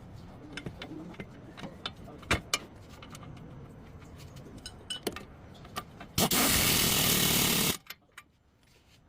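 Workshop sounds of a car repair: scattered clicks and knocks of tools on metal, then a loud, steady burst of noise lasting about a second and a half that stops abruptly.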